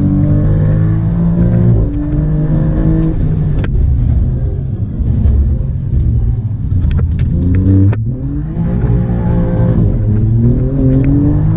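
Alfa Romeo Giulia Quadrifoglio's twin-turbo V6 pulling hard under full throttle, heard from inside the cabin. Its pitch climbs through the revs and drops at each upshift, about two seconds in, near four seconds and again near eight seconds, then climbs once more.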